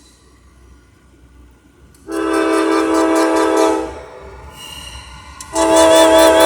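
Norfolk Southern diesel locomotive's air horn sounding two long blasts, each a chord of several notes. The first starts about two seconds in and lasts nearly two seconds; the second starts near the end.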